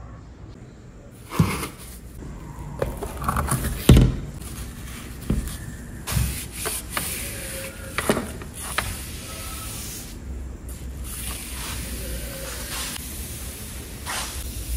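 Irregular knocks, taps and rustling of things being handled and set down, with one louder knock about four seconds in.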